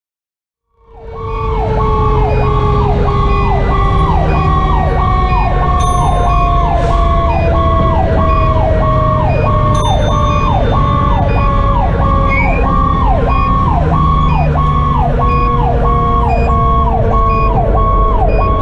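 Fire engine sirens under way: a Sho-Me Powercall electronic siren on a fast yelp, about two falling sweeps a second, over the steady tone of a Federal Q2B mechanical siren slowly winding down. The truck's Detroit Series 60 diesel runs underneath. The sound starts suddenly about a second in and cuts off abruptly at the end.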